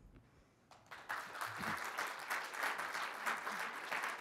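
Audience applauding, the clapping starting about a second in after a brief near-silence and continuing steadily.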